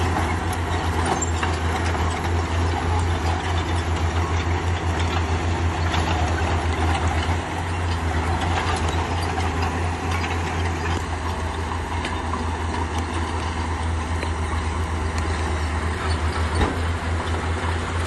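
Bulldozer's diesel engine running steadily with a rapid low throb, over a continuous wash of mechanical clatter.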